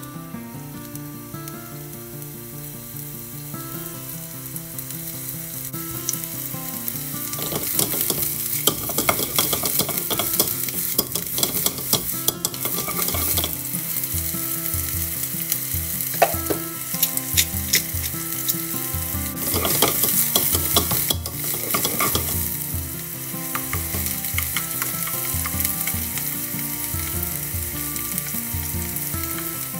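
Maitake mushrooms sizzling in hot oil in a nonstick frying pan, growing louder about seven seconds in, as they are stirred with wooden chopsticks.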